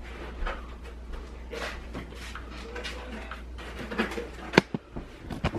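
Indoor room tone with a steady low hum and faint scattered household sounds, broken by a few sharp clicks or knocks about four and a half seconds in.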